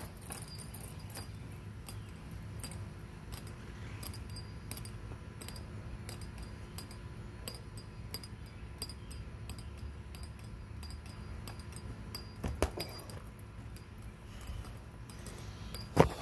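Metal chain holding a swinging heavy bag clinking at a steady rhythm, about one clink every three quarters of a second. A louder knock comes near the end.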